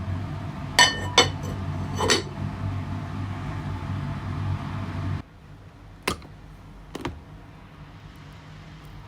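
Tableware clinking three times in quick succession over a steady low hum, which cuts off suddenly about five seconds in; two lighter knocks follow.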